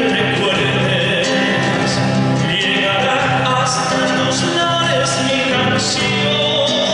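Recorded Argentine folk music: a song with singing over instrumental accompaniment, playing steadily at full level.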